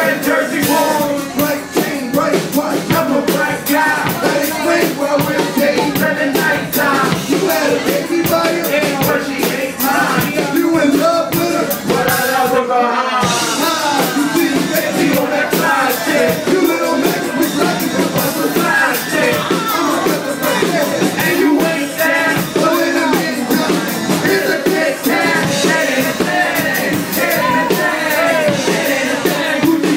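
Loud live hip-hop music over a club PA: a steady drum beat with the performers' vocals over it through microphones. A little before halfway through, the beat drops out for a moment while the vocals carry on, then it comes back.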